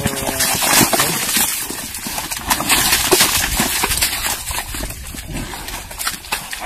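Two animals grappling in deep wet mud: continual sloshing, slapping and churning of mud under their feet and bodies, with a brief pitched sound right at the start.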